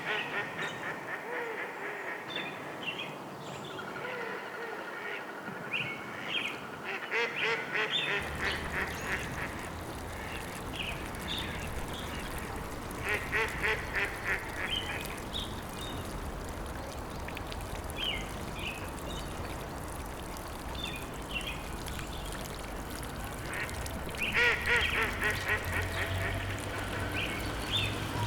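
Waterfowl calling in repeated bouts of honking and quacking calls over a steady natural background hiss. A low, steady rumble joins the background about eight seconds in.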